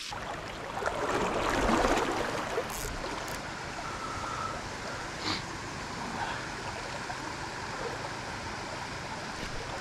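Steady rush of a river's flowing water, swelling for a moment a second or two in.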